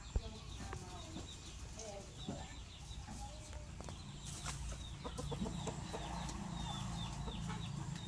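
Birds calling: many short, repeated high chirps that drop in pitch, with lower clucking calls among them, over a steady low rumble. A single sharp tap sounds just after the start.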